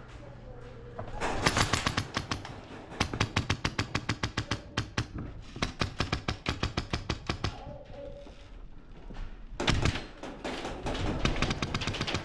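Airsoft gun firing two long strings of rapid shots, about five a second, with a pause of about two seconds between them.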